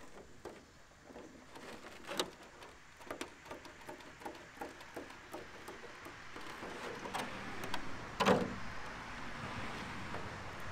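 Scissors snipping and cutting around the wheel wells of a clear polycarbonate RC car body, in irregular small clicks with the stiff plastic crackling as it flexes, and one louder crunch about eight seconds in.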